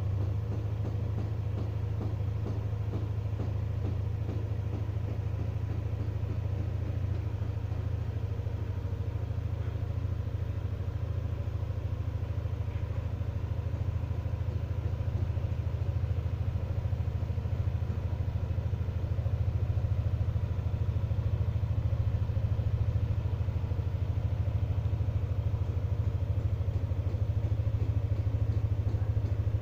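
A motor running steadily off-screen: a low, even drone with faint steady tones above it and no change in pace.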